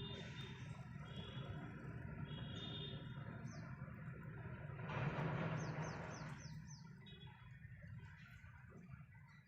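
Budgerigars chirping, with quick high falling chirps and buzzy chatter. About five seconds in comes a brief burst of rustling noise, the loudest sound here.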